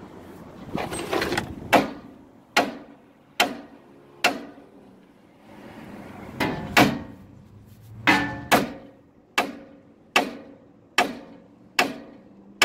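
Big sledgehammer striking the steel ear of a truck's steering arm to knock the tapered drag link joint loose: a steady series of sharp metal-on-metal blows, roughly one a second, with a short pause partway through.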